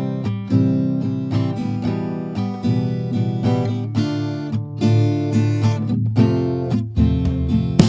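Background music: an acoustic guitar piece with plucked and strummed notes at a steady pace.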